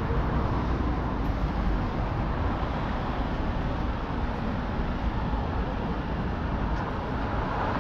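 Steady road traffic on a multi-lane city street: cars driving past with a continuous rumble of tyres and engines.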